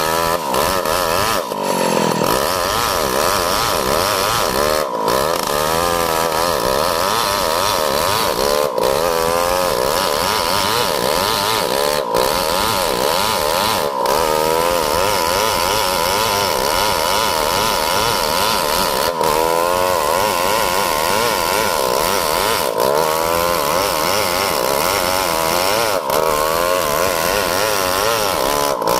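Stihl 070 two-stroke chainsaw running at high revs while cutting lengthwise through a coconut log. Its engine pitch wavers up and down as the load on the chain changes, with a brief dip in speed about two seconds in.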